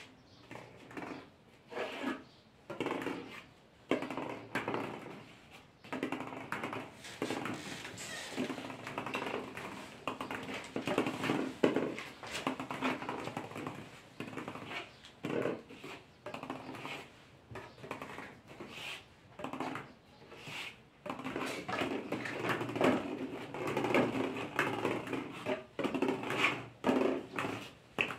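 Small balls bouncing and clattering, a long run of irregular knocks.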